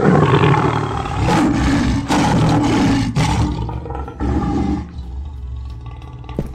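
Lion roaring and growling, a cartoon sound effect: several rough roars in a row that fade off after about five seconds.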